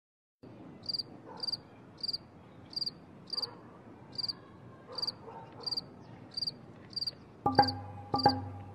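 Cricket chirping in short, evenly spaced chirps, about two a second, over a faint low hiss. About seven and a half seconds in, music with struck, ringing notes starts in time with the chirps and grows louder.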